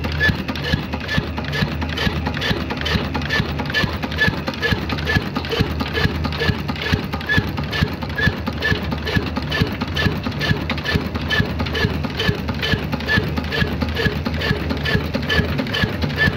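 Old Ruston Hornsby single-cylinder horizontal diesel engine running steadily, a low even hum under a regular beat of knocks and ticks about two and a half times a second.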